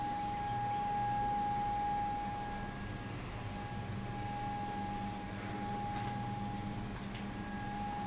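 Outdoor tornado warning siren sounding a single steady tone during its weekly test, heard from indoors; it fades slightly in and out.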